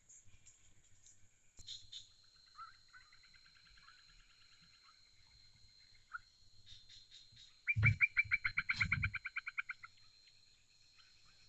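Forest wildlife calling: a rapid string of repeated notes, about nine a second, loudest for about two seconds past the middle, with a fainter similar call earlier and a steady high insect tone throughout.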